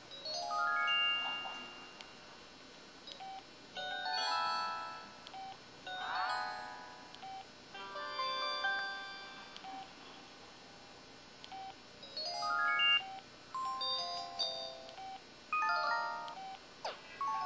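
IM-5400 mobile phone's speaker playing a string of short electronic ringtone and effect melodies, one after another with brief pauses between them; one has a quick rising sweep about six seconds in.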